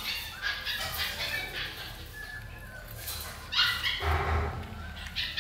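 Two puppies eating from a shared food bowl: irregular chewing and smacking noises, with a louder burst about three and a half seconds in.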